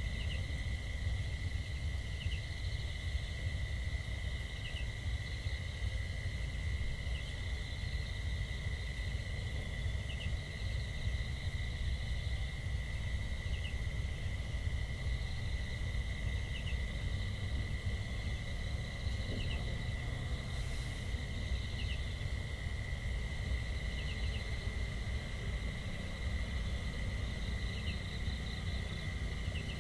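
Insects: a steady, unbroken high trill with short chirps about every one and a half to two seconds, over a constant low rumble.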